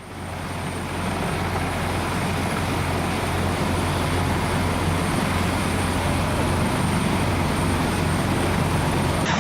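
Super Puma helicopter running close by as it comes in to land: a steady, heavy rush of rotor noise with a strong low hum underneath, swelling in over the first second.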